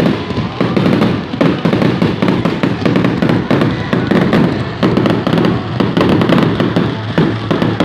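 Fireworks firing in rapid succession at close range, a continuous dense crackle of many small sharp bangs and pops from crackling stars and spark showers.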